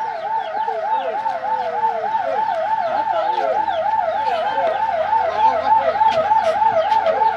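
Ambulance electronic siren in a fast warble, about four rises and falls a second, growing a little louder in the second half.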